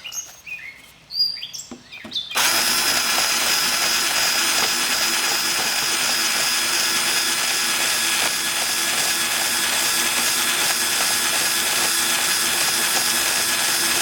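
Power drill spinning a rotary wood rasp bit against the edge of a piece of wood, starting about two seconds in and running steadily. Birds chirp before the drill starts.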